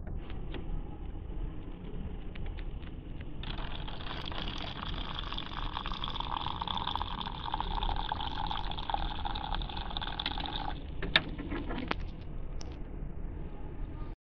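Hot water from a dispenser tap pouring into a paper drip-bag of coffee. It starts about three and a half seconds in, runs steadily for about seven seconds and stops suddenly, followed by a few light clicks, over a steady low hum.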